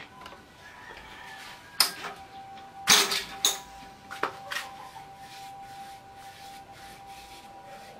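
A few sharp knocks and clacks, the loudest a quick cluster about three seconds in, over a faint steady high hum.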